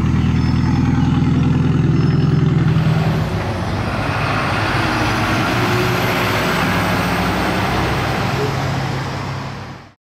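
A Porsche 944 rally car's engine idling steadily. About three seconds in it gives way to the broad, steady noise of a car-transporter truck running, which fades out just before the end.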